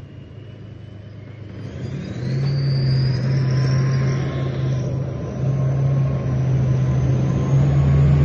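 Tank engine revving up about two seconds in, then running loud: a steady low drone with a high whine that rises in pitch as it speeds up.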